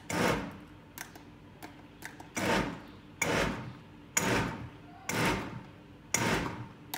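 Countertop blender pulsed six times in short bursts of about half a second each, chopping soaked black-eyed peas in water to loosen their skins. A few light clicks fall between the first two pulses.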